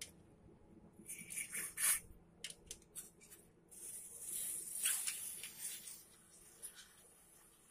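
Aerosol carburetor cleaner sprayed through its thin straw into a motorcycle carburetor's jets and passages. There is a short hissing burst about a second in, then a longer hiss from about four seconds, with a few light clicks in between.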